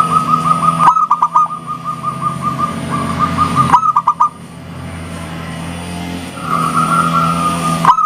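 Zebra dove (perkutut) cooing. Each phrase is a fast run of short coos ending in a few separate, stronger notes. Two phrases finish about a second in and near the middle, and a third begins near the end, over a steady low hum.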